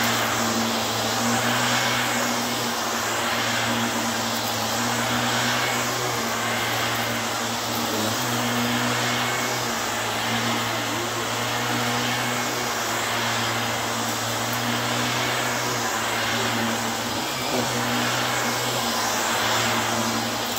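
Small Bissell vacuum cleaner running on a thick shag rug: a steady motor hum and rushing air, shifting slightly as it is pushed back and forth.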